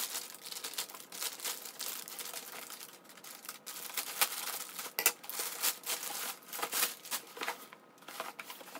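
Plastic mailer bag crinkling and rustling as it is handled and cut open with scissors: a run of irregular crackles with a few sharp snaps.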